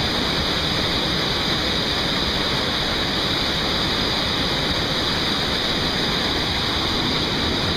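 Powerful waterfall plunging into a narrow rock gorge close by: a steady rush of crashing water that does not let up.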